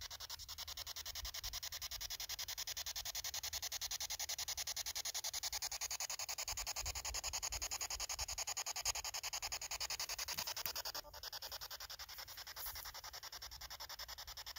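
Spirit box (ghost box) sweeping through radio stations: a rapid, even chopping of static hiss. The hiss dips briefly about eleven seconds in.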